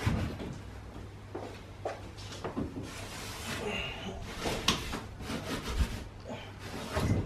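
Hand rubbing a small pad back and forth over the floor of a boat hull, an uneven scraping scrub broken by a few light knocks, the heaviest near the end.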